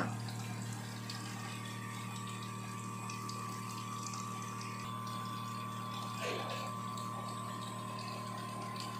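Booster pump of a C-5 Plus reverse-osmosis water filter running, a steady low hum with a faint high whine above it.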